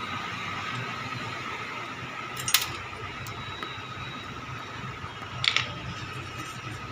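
Two short metallic clicks about three seconds apart, small tools and parts clinking while new pins are fitted to an inverter's charging jack, over a steady background hiss with a faint high hum.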